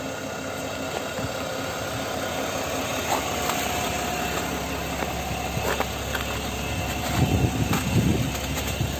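Dodge Sprinter van's engine idling steadily, with a few light clicks and some low bumps in the second half.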